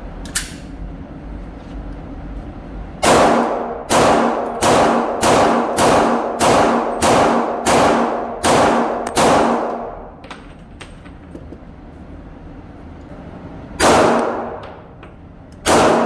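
Pistol shots from an HK VP40 in .40 S&W: a quick string of about ten shots fired at a steady pace, then two single shots near the end, each with a short echoing tail.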